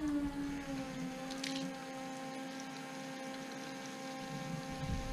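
Water running from a tap into a foam cannon bottle, with a steady humming tone over a faint rush of water.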